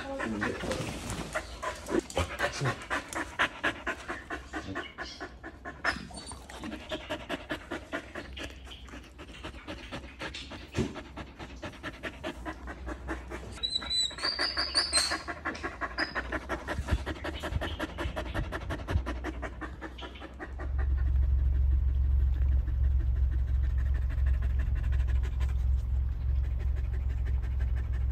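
A dog panting quickly and rhythmically, with a few short high squeaks about halfway through. About twenty seconds in, a steady low rumble takes over and becomes the loudest sound.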